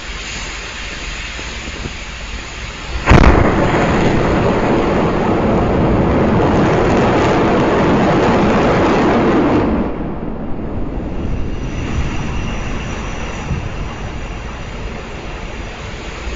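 Static fire of SpaceX Super Heavy Booster 7's seven Raptor rocket engines: a sudden crack at ignition about three seconds in, then a loud, steady rumble for about seven seconds that drops away at engine shutdown, leaving a fainter rumble.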